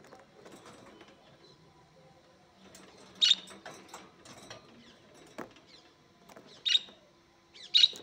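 Budgerigars chirping: three short, sharp chirps, the first about three seconds in and two more near the end, with faint scratchy sounds between them.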